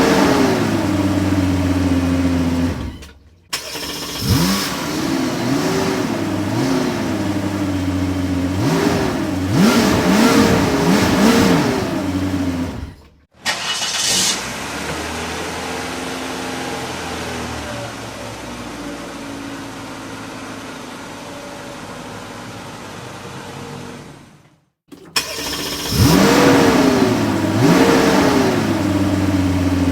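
A series of separate car engine recordings: an engine revved up and down again and again, broken by short silences, then about ten seconds of steadier, quieter running, then more revving near the end.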